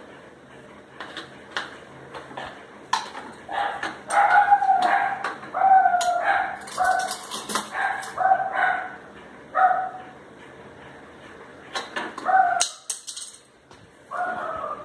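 A dog barking over and over, in a quick run of short, high barks, then a few more near the end.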